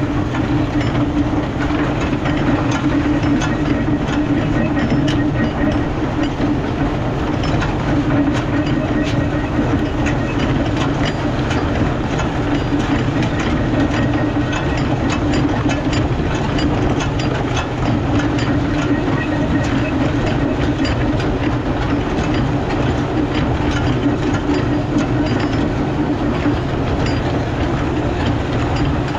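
Farmall tractor engine running steadily while it pulls a rear-unloading manure wagon. Over the engine comes a constant fast clatter of clicks and clanks from the wagon's PTO-driven apron chain and running gear as the load is unloaded off the back.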